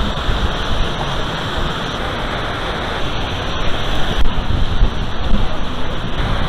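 Steady rushing of falling water from an artificial waterfall, with a few brief louder bumps in the second half.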